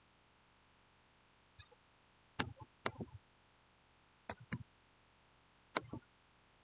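Computer mouse clicking, a handful of short sharp clicks, several in quick pairs, over a quiet room.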